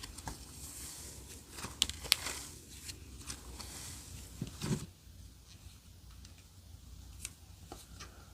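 Clear slime being squeezed and pressed by hand, giving quick sticky clicks and pops, with a deeper squelch about four and a half seconds in and sparser clicks after.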